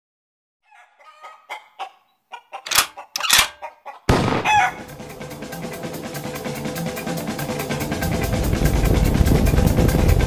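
Fowl calls in a run of short, quick bursts. About four seconds in, music with a steady beat starts abruptly and builds louder.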